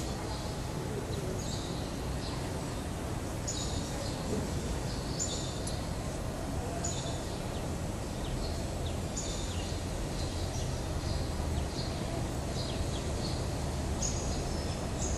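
Small birds chirping, short high calls coming irregularly about one or two a second, over a steady low background hum.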